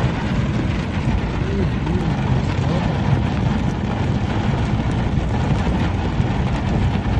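Heavy rain drumming on a car's roof and windscreen, a dense, steady rush heard from inside the car.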